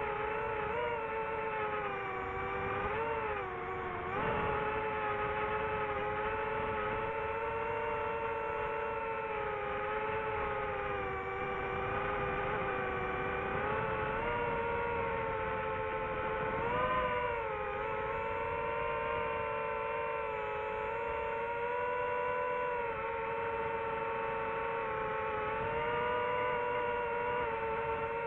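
DJI FPV drone's motors and propellers whining steadily in flight, heard through its onboard microphone. The pitch dips and recovers with throttle changes a few times, briefly dropping about three to four seconds in and rising for a moment about two-thirds of the way through.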